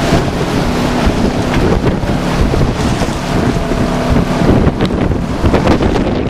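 Bass boat under way in choppy water: heavy wind noise on the microphone and rushing water, with the outboard motor droning underneath.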